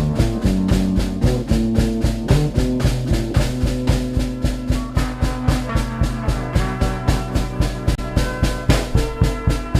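Music: a steady drum-kit beat with a stepping bass line and sustained pitched notes.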